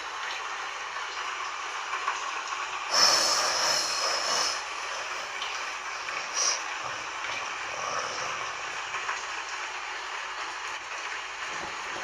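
Heavy rain falling steadily, with a sharp thunder crack about three seconds in that lasts around a second and a half, and a shorter, higher burst a few seconds later.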